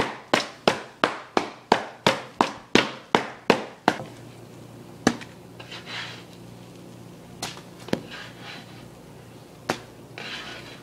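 Spatula smacked repeatedly against the griddle: about a dozen sharp strikes, roughly three a second, each ringing briefly, stopping about four seconds in. After that come a few scattered clicks and short scrapes of the spatula on the griddle among the pancakes.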